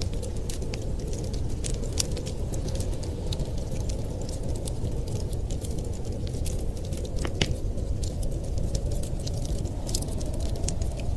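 Wood fire crackling in a fireplace: scattered sharp snaps and pops over a steady low rumble, with one louder pop about seven seconds in.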